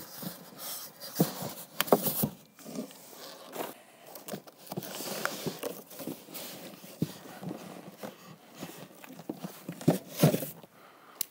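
Cardboard box with a heavy rack-mount stage box inside being handled: flaps rustling and scraping, scattered knocks, and footsteps on carpet. The box is set down with a couple of dull thumps about ten seconds in.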